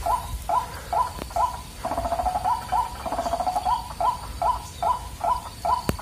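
White-breasted waterhen (ruak-ruak) calling: a steady run of short, repeated croaking notes, about two a second, with a lower drawn-out note under them in the middle.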